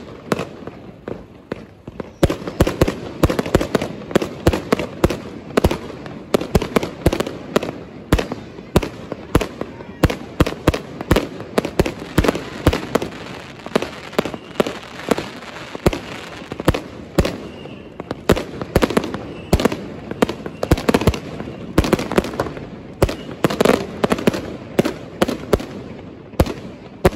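Fireworks and firecrackers going off nonstop: a dense run of sharp, irregular bangs, several a second, over a constant background of further explosions.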